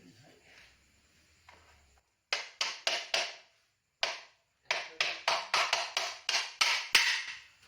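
Hammer tapping a part of the motorcycle's front brake and wheel assembly to seat it: a burst of four sharp taps, one more, then about ten quick blows at roughly three a second.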